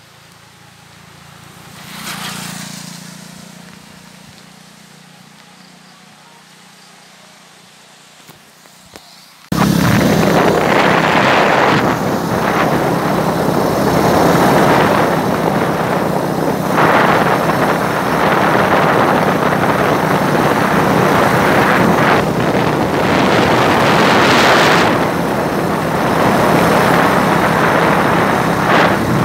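Quiet roadside at first, with one vehicle passing about two seconds in. Then a sudden change to loud, steady wind rushing over the microphone of a moving motorcycle, with the engine's steady hum underneath.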